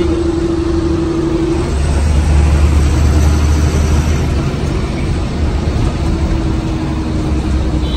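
Haryana Roadways bus on the move: steady low engine rumble with road noise. A steady drone fades out about two seconds in and comes back faintly near the end.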